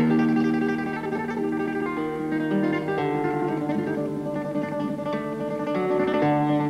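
Solo flamenco guitar playing, with notes ringing over a held bass note that changes about three seconds in and again near the end.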